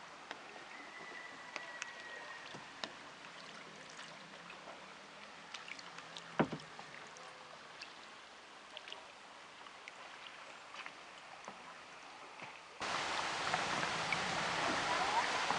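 Canoe paddling on a calm river: quiet water with scattered small drips and splashes from the paddles, and one sharp knock about six seconds in. Near the end the sound changes abruptly to a louder steady rush of noise.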